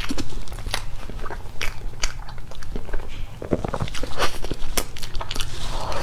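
Close-miked mouth sounds of someone eating soft cream cake from a spoon: wet lip smacks and chewing clicks at an irregular pace, a little denser about halfway through.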